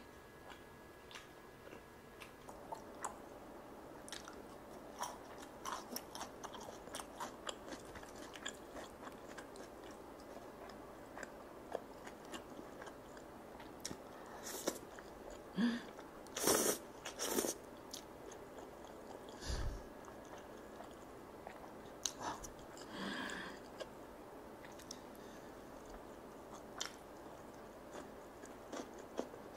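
Close-miked eating sounds: chewing and biting sauce-glazed grilled chicken, rice cakes and ramen noodles, with many small wet mouth clicks. About halfway through come several louder, longer bursts as a mouthful of noodles is taken in.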